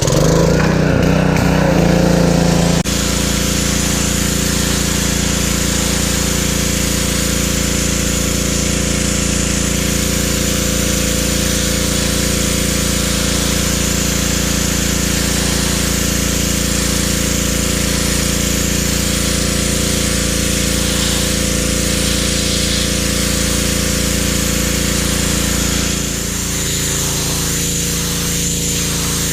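PowerStroke 2200 PSI gas pressure washer running steadily, its small engine droning under the hiss of the water spray. The engine note shifts about three seconds in and eases slightly near the end.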